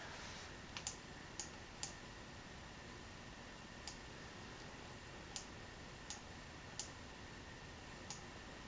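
Computer mouse buttons clicked about nine times at uneven intervals, in a cluster near the start and then singly, over a faint steady hiss.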